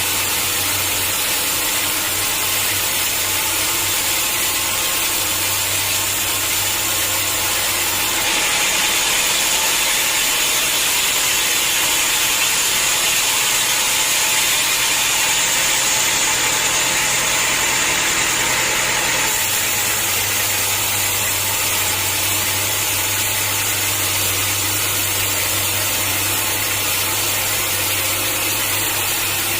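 Sawmill saw running steadily. For about ten seconds in the middle its low hum gives way to a louder, higher hiss as the blade cuts through a hard acacia log.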